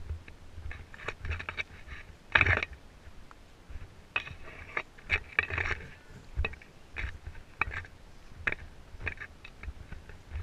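Irregular clicks, scrapes and rustles of a handheld camera being moved while walking, with low thumps of wind on the microphone.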